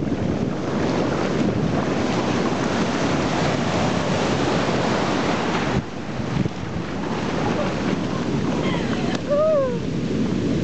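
Shallow surf washing and foaming in over the sand, with wind buffeting the microphone. Near the end a brief falling cry is heard over the water.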